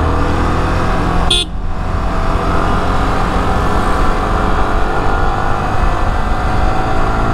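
Motorcycle engine running steadily while riding in traffic, its pitch drifting slightly with the throttle. A short toot sounds about a second and a half in.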